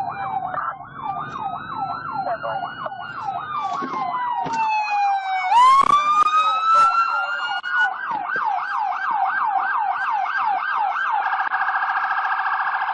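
Police sirens: a fast yelp with a slower wail over it, which falls and then rises sharply about halfway through. Near the end the yelp switches to a rapid, steady warble.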